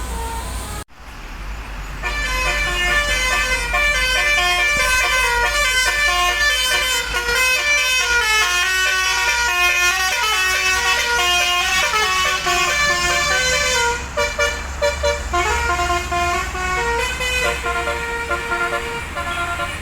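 Bus fitted with a Basuri telolet musical horn playing a quick tune of stepped notes, over a steady low rumble. The tune comes in about two seconds in and turns choppier and lower for the last few seconds.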